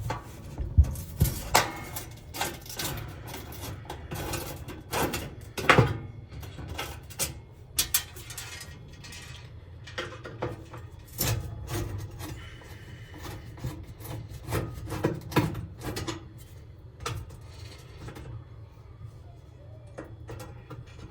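A Phillips screwdriver backing two screws out of a gas range's metal panel: rubbing and scraping of the driver in the screw heads, with irregular clicks and knocks of metal parts being handled.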